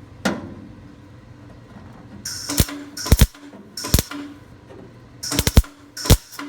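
Welder arcing in five short crackling bursts, starting about two seconds in: quick stitch welds on thin sheet metal, filling spots where the weld blew through.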